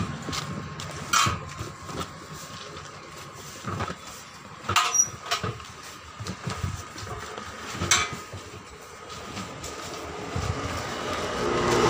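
Rubber inner tube being worked by hand into a tractor tyre on its steel rim: rubbing and scraping of rubber, with four sharp knocks spread through.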